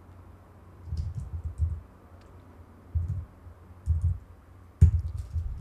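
Computer mouse and keyboard clicks: short groups of sharp clicks roughly a second apart, the loudest about five seconds in.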